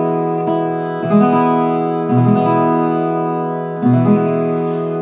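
Viola caipira with solid jacarandá mineiro back and sides being strummed: a few chords struck a second or so apart and left to ring, showing off its bright treble.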